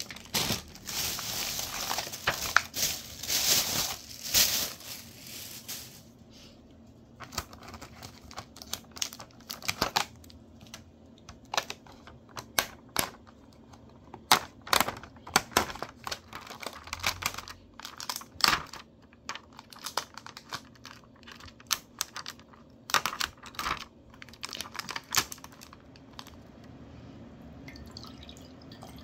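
Thin plastic carrier bag rustling and crinkling as takeout food containers are lifted out, then scattered sharp crackles and clicks as plastic film is peeled off a plastic food tray and the containers are handled.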